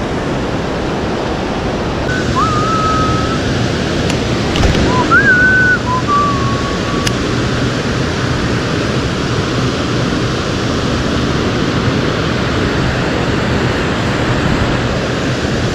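Steady rushing of water pouring through a dam's open spillway gates. A few short whistle-like tones sound between about two and seven seconds in.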